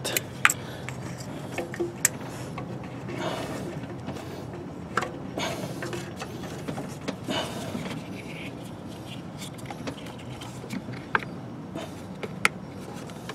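Scattered sharp clicks and short scraping rubs of hands and tools working around an ignition coil and spark plug wire boot in an engine bay, with the engine off.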